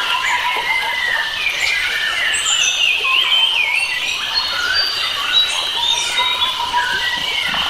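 Many wild forest birds singing at once: overlapping warbling and chirping phrases of quick rising and falling notes, without a break.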